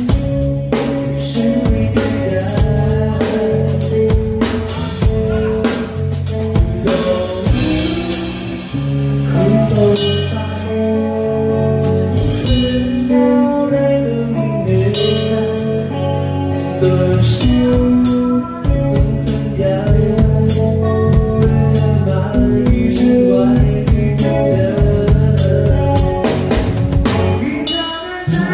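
A rock song with a sung vocal and band backing, a drum kit playing along with steady kick, snare and cymbal hits throughout. The music drops back briefly about eight seconds in and again near the end.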